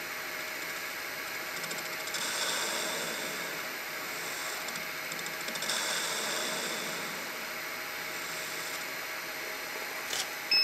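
Metal lathe running with its chuck spinning over a steady motor whine, while the tool faces off the end of a small valve-guide blank. The cutting noise swells twice, about two seconds in and again around six seconds.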